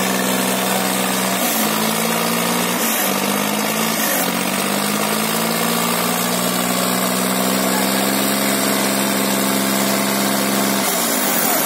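Tractor diesel engines running hard under load in a tug-of-war, the rear tyre spinning in place on wet concrete. The engine note is steady, wavers up and down between about one and a half and four seconds in, and drops near the end.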